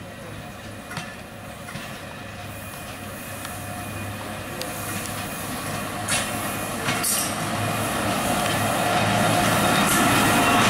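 Passenger train coaches rolling slowly past, wheels clicking several times over rail joints, growing steadily louder as the diesel locomotive draws near.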